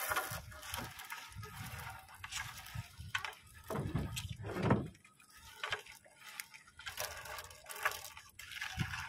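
Wet monofilament fishing net being hauled in by hand over the side of a boat, with dripping and splashing water and irregular rustles and knocks, loudest about four seconds in.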